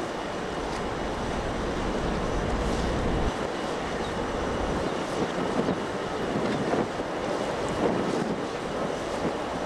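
Wind buffeting the microphone over the steady wash of small harbour waves, with the heaviest low rumble in the first half, easing about five seconds in.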